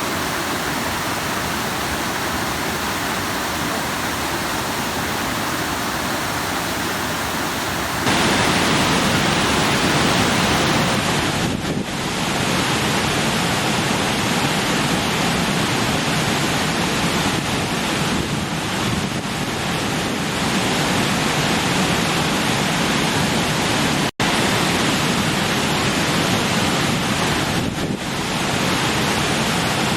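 Stream water rushing and splashing over rocks, a steady full rush. About eight seconds in it changes abruptly to a louder, fuller rush, and it drops out for an instant near the end.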